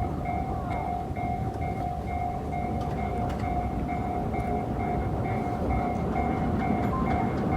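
Japanese level-crossing warning bell ringing steadily, about two strokes a second, over the low rumble of a train on the line.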